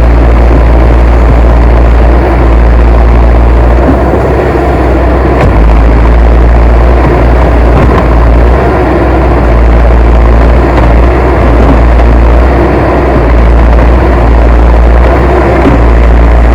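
Heavy machine engine running steadily, loud, with a strong low drone and no changes in pitch.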